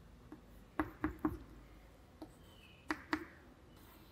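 Chalk tapping and scraping on a blackboard as letters are written: about seven short sharp taps, several in quick pairs.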